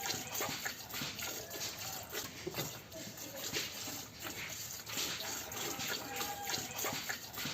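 A cow being milked: repeated squirts of milk hitting a pail.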